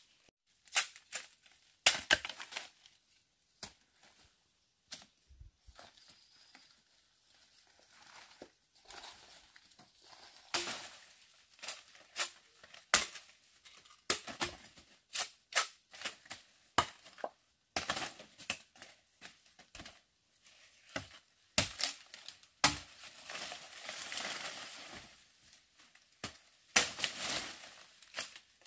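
Irregular sharp snaps and cracks with tearing and rustling, as of plant stems and husks being broken and stripped by hand, with a longer stretch of tearing near the end.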